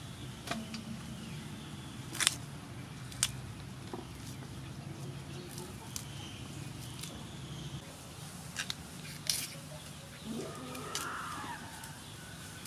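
Water hyacinth stems snapped and torn by hand: several sharp, separate snaps over a few seconds, over a steady low hum. A bird calls once near the end.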